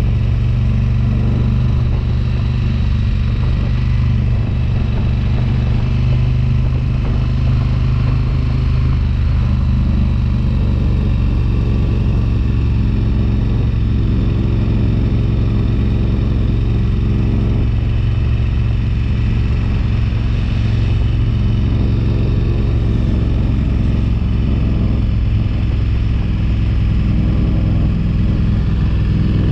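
Motorcycle engine running steadily while riding at an even speed, a constant low hum with road and wind noise.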